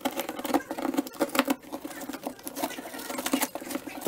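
Drywall being cut by hand with a blade, a quick irregular series of rasping, scraping strokes as the ragged kick hole is squared off.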